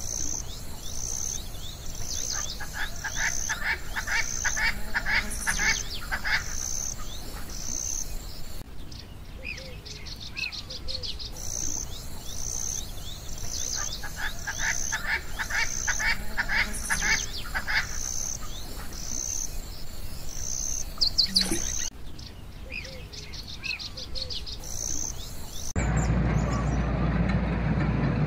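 Birds and insects chirping: a high chirp repeated about twice a second, with bursts of rapid, lower trilling. Near the end the calls give way to a steady rushing noise.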